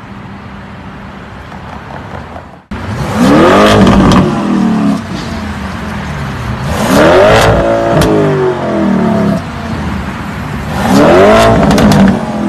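Lamborghini Urus twin-turbo V8 revved three times, each rev rising in pitch and falling back, about four seconds apart. Before the first rev, about three seconds in, there is a quieter steady sound.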